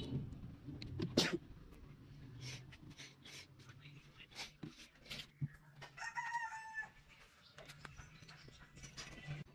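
A rooster crows once, a call of about a second starting some six seconds in. Around it are scattered light clicks and knocks from empty plastic jugs being handled, the loudest about a second in.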